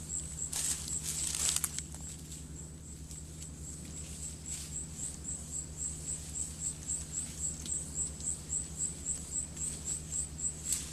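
A forest insect calling in a steady run of short high chirps, about four a second. Leaves and brush rustle near the start, and a low steady hum sits underneath.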